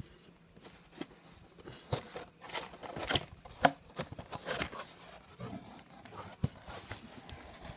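Packaging being handled: an irregular string of light clicks, crinkles and rustles.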